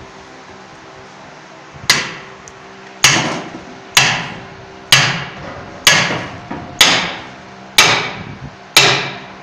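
Heavy hammer striking a steel drift set on a cylinder liner, driving the liner (sleeve) into a Nissan UD engine block. Eight sharp metallic blows about one a second, starting about two seconds in, each ringing briefly.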